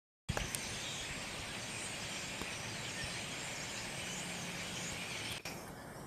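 A large flock of birds calling all at once in the trees, a dense, continuous chatter. It thins abruptly about five seconds in.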